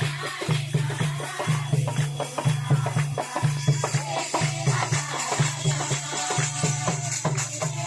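Music with a steady, regular beat and percussion.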